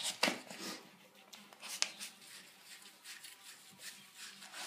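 Hands scrubbing and lathering a small dog's wet, soapy coat in a stainless steel sink: soft rubbing and wet sounds, with a few sharp clicks and taps, the loudest near the start and about two seconds in.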